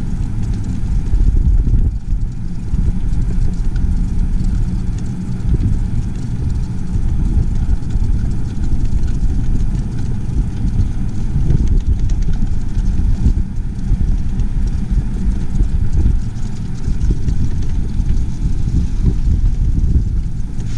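Steady low rumble of a moving vehicle picked up by a GoPro, with uneven low buffeting throughout.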